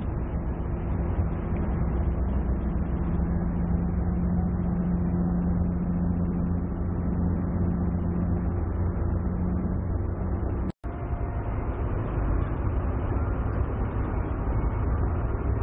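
Motor yacht under way, its engines running steadily with a low hum over a rushing noise. The sound drops out for an instant about eleven seconds in.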